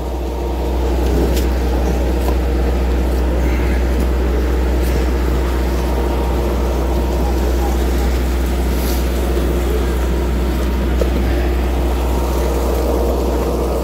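Steady low drone of a fishing trawler's engine and deck machinery, running evenly without change.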